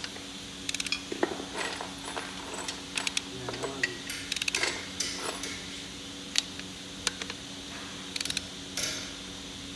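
Ratchet wrench clicking in short irregular runs while connecting-rod cap bolts are tightened on a jet ski engine's crankshaft, with a few light metal taps.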